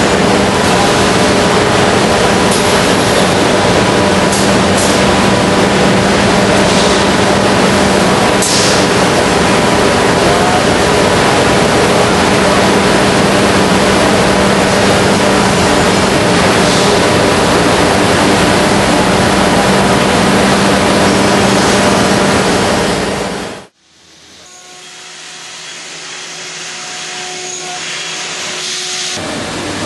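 Busellato CNC router running as it routes wood panels: a loud, steady machine noise with a steady hum underneath. About 24 seconds in it cuts off abruptly, and a quieter machine sound from an edgebander fades in.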